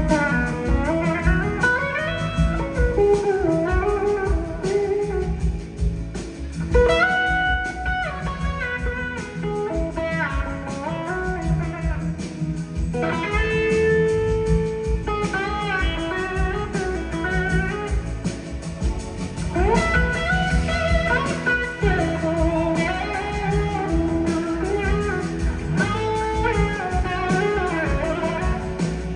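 Live blues-rock band playing an instrumental passage: a lead electric guitar takes a solo line full of sliding, bending pitches over bass and drums.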